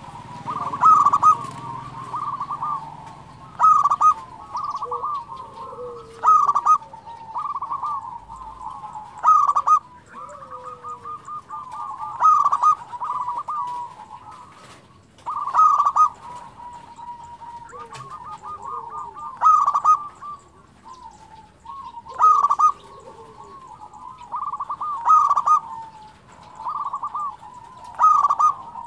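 Zebra dove (perkutut) singing: a cooing phrase that opens with a loud note and runs into a rippling trill, repeated about every three seconds.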